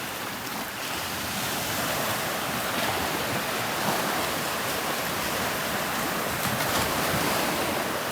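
Small Gulf of Mexico waves washing onto a sandy beach and breaking over a sandbar offshore: a steady wash of surf that swells a little about a second in.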